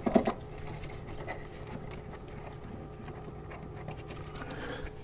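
Hands handling the plastic damper control housing and its wiring harness: a cluster of small clicks and knocks near the start, then light scattered clicks and rustles. Under them runs the steady hum of the refrigerator.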